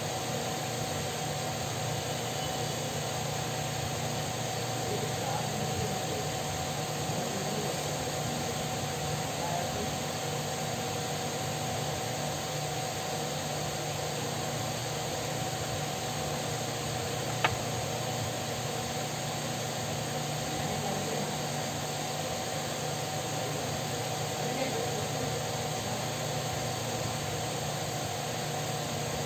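Electric fan running with a steady whir and hum. A single sharp click comes a little past halfway.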